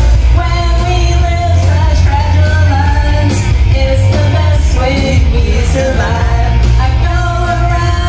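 A woman singing karaoke into a microphone over a loud backing track with a heavy bass line, amplified through a lounge's sound system.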